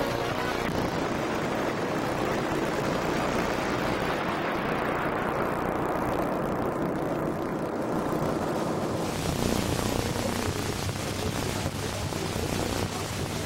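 A loud electronic whoosh of noise in a break between eurobeat tracks. Its high end is filtered down over a few seconds, then opens back up about nine seconds in, over a steady low hum.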